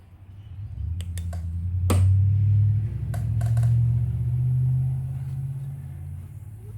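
A low droning hum that sets in about a second in, swells and eases over several seconds, with a few sharp clicks of tools on the air rifle's metal parts, the loudest about two seconds in.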